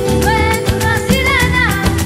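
Background music with a steady beat and a melody that slides in pitch.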